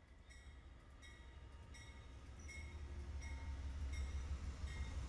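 Two Amtrak GE P42DC diesel locomotives pulling into the station past the microphone, their low rumble growing steadily louder, with a bell ringing about every 0.7 seconds.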